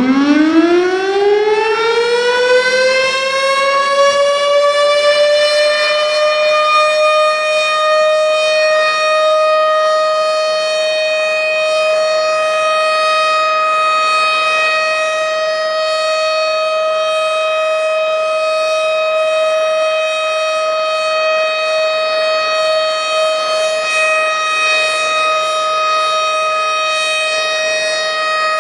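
Tornado warning siren finishing its wind-up: the pitch climbs over the first few seconds, then holds one steady, loud tone.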